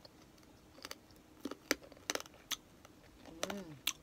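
Chewing crispy pata (deep-fried pork knuckle), with a dozen or so sharp, irregular crunches from its crackling skin.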